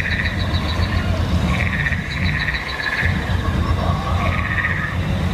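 Frog-like trilling calls in three bouts, each a rapid pulsing trill, over a steady low rumble.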